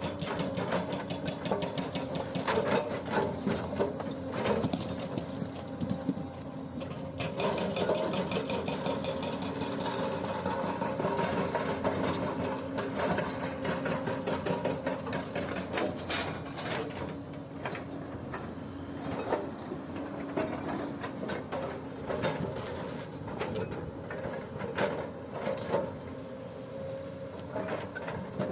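Hydraulic breaker on a Hyundai 210LC-7H excavator hammering with rapid, continuous blows, over the steady drone of the excavator's diesel engine.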